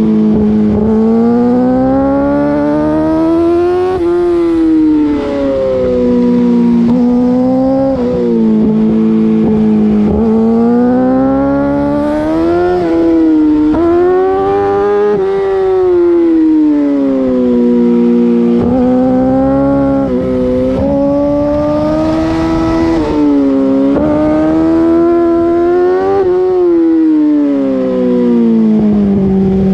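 2008 Yamaha R6 inline-four on an Akrapovic full race exhaust, heard close to the exhaust can while riding hard: the revs climb and fall again and again, with sudden drops at gear changes and slower falls when rolling off the throttle.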